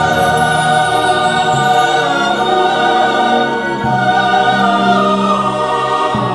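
Music: classical, operatic-style singing in long held notes over a sustained accompaniment, the notes changing a few times.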